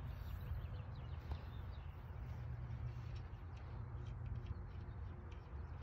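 Outdoor ambience: a steady low rumble of wind on the microphone with faint, scattered bird chirps.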